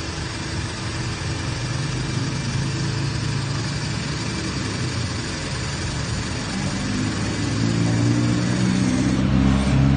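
Angle grinder running under load against steel, a continuous harsh grinding that grows louder toward the end.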